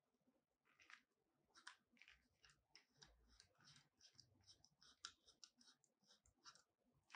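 Faint clicks, taps and scrapes of a smartphone being pushed into the plastic phone clamp of a Yunteng tripod by gloved hands, the light rubbing of the gloves mixed in. The clicks come thick and irregular from about one and a half seconds in.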